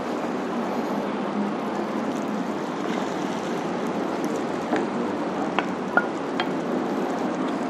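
Butter sizzling in a frying pan over a gas flame, a steady hiss as a wooden spatula stirs it; a noodle-and-egg mixture is poured in, and the spatula clicks sharply against the pan a few times in the second half.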